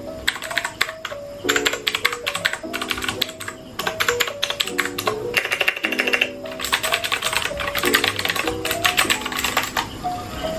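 Rapid typing on a Royal Kludge RK71 mechanical keyboard fitted with clicky blue switches: fast runs of sharp key clicks, broken by short pauses, heard over background music.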